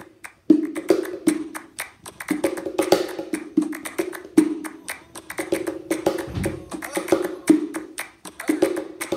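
LP bongo cajón played by hand in a flamenco bulería rhythm: quick sharp wooden slaps and taps, many ringing with the box's hollow tone. One deep low thump comes about six and a half seconds in.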